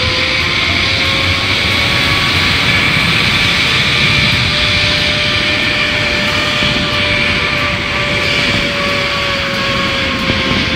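Zip-line trolley pulleys running fast along the steel cable, a steady whine that climbs a little in pitch and eases down near the end, over a loud rush of wind on the microphone.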